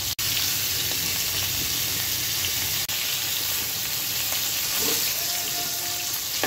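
Pigeon pieces sizzling steadily in hot oil in an iron frying pan while a metal spatula turns them over.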